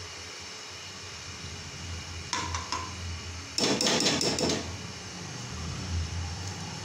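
Metal spoon clinking and scraping against a metal frying pan as ghee is knocked off the spoon into the pan: a few clinks with a short ring a little past two seconds, then a quick, louder run of knocks and scrapes about three and a half seconds in, lasting about a second. A low steady hum sits underneath.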